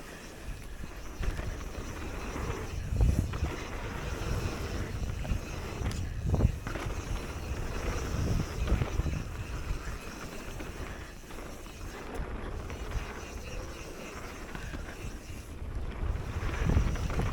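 Wind rushing over the camera microphone and mountain bike tyres rolling on dirt during a fast descent, with a few heavy thuds about 3 and 6 seconds in and near the end.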